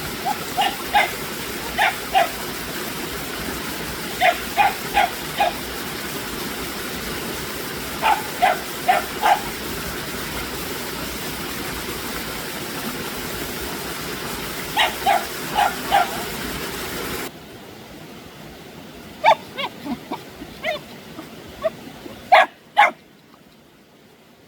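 A dog barking in short runs of three or four barks every few seconds, over a steady rushing background noise. The background drops away suddenly about two-thirds of the way through, and a few more sharp barks follow.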